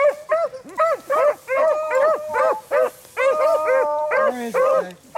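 A pack of beagles baying on a rabbit trail. Several hounds' voices overlap in quick repeated barks, about three a second, and a lower-pitched voice joins near the end.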